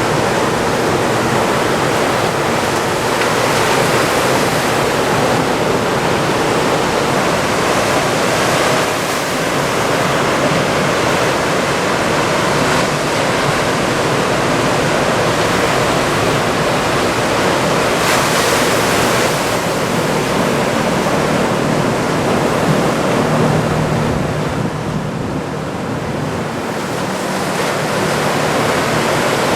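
Ocean surf from a typhoon swell: waves breaking and washing in, a loud, continuous rush of white water. One wave breaks brighter about eighteen seconds in, and the wash eases slightly a little later before building again.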